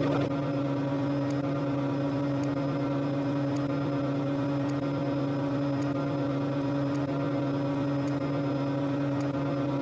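A steady, unchanging low hum, made of several held tones, with faint regular ticks about once a second.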